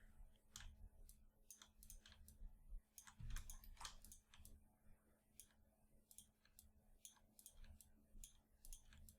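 Faint, irregular clicking of a computer mouse and keyboard, several clicks a second, over a steady low hum.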